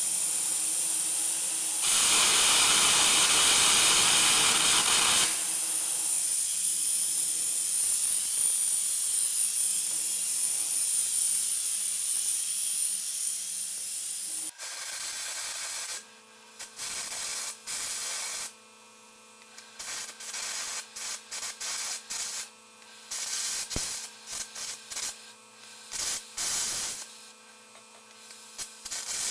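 Arc-air gouging: a carbon-electrode arc with a compressed-air jet blowing the molten weld out from around a roller's end plate, a loud steady hiss. About fourteen seconds in it stops, leaving a low hum broken by many short bursts of hiss.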